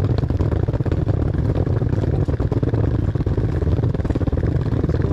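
Loud, steady low rumble of outdoor noise with a fast flutter.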